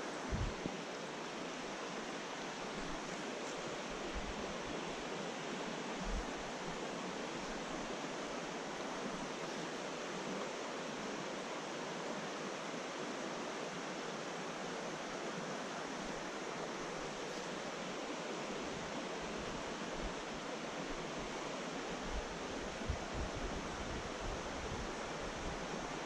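Steady rush of a trout stream's flowing water, with a few soft low bumps about a second in, around six seconds in, and a few more near the end.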